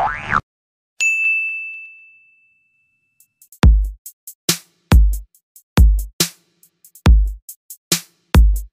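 A single bright bell ding, like a notification chime, about a second in, ringing out and fading over about a second and a half. From about three and a half seconds in comes an electronic drum-machine beat: a deep kick drum about once a second with short clicky hits between.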